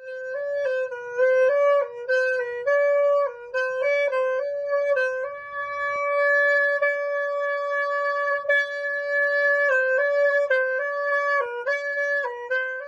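Solo wind instrument playing a slow melody of short stepping notes, with one long held note about halfway through.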